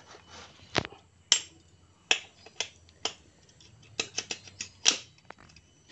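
A dozen or so sharp, irregular metallic clicks and taps as the gearshift shaft of a motorcycle engine is fitted into the crankcase by hand.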